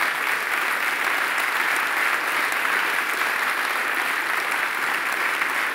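A large audience applauding steadily, with dense and even clapping.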